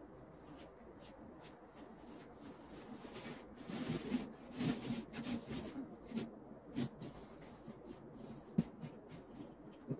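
A snow shovel scraping and scooping through snow in a run of separate strokes from about three to seven seconds in, followed by a couple of sharp knocks near the end.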